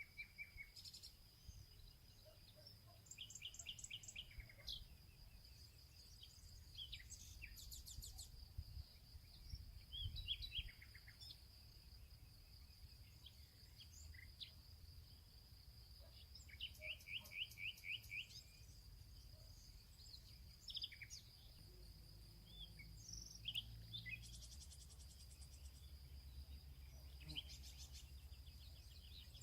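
Faint birdsong: many small birds chirping and trilling in short, quick runs of notes, over a steady high-pitched hum and a low background rumble.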